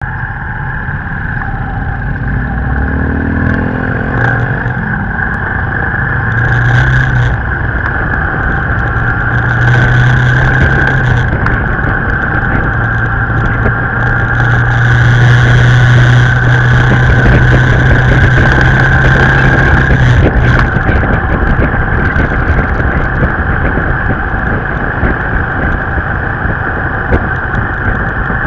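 A motorbike engine heard from the bike itself, pulling away with its pitch rising over the first few seconds, then running steadily at cruising speed under a constant rush of wind and road noise.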